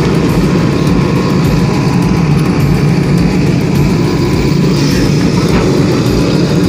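A JCB excavator's diesel engine running steadily while the machine works.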